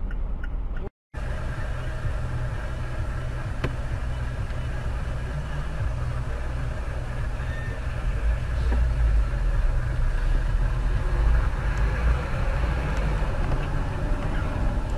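Steady rumble of a car on the move, engine and road noise together, growing somewhat louder from about eight seconds in. A brief dropout about a second in marks a cut.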